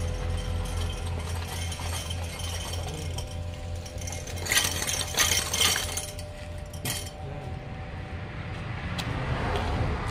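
Metal clinking and rattling in a quick cluster about halfway through and once more a second later, over a steady low hum.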